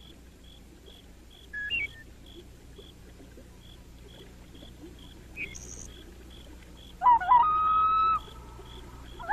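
A loon's wail: a single long call that slides upward, then holds a steady note for about a second, starting about seven seconds in. A second call begins at the very end. Under it are faint regular ticks, about two and a half a second, and two short high chirps.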